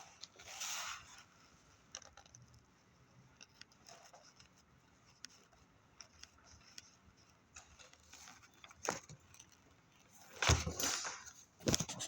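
Scattered faint clicks and small handling noises, with a louder knock and a burst of rustling about ten and a half seconds in.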